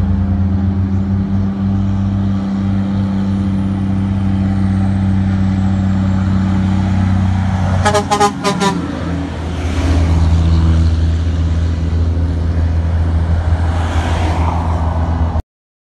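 Heavy diesel truck engine running steadily. About eight seconds in, a quick series of about four short truck horn toots sounds.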